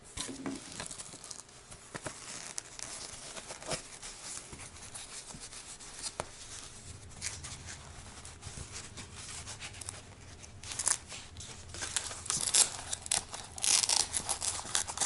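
A cloth cover being worked over a foam helmet ear pad, rustling and scraping, with short rasping tears of Velcro hook-and-loop pulling loose, loudest in the last few seconds.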